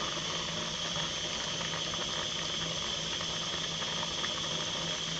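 A pot of beans in blended tomato and pepper, with red palm oil just added, simmering and bubbling steadily, with faint scattered pops over a steady low hum.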